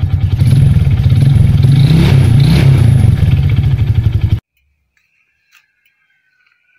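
Kawasaki Kaze motorcycle's single-cylinder four-stroke engine running loud and close, with a dense, even low firing rhythm. It cuts off suddenly about four seconds in.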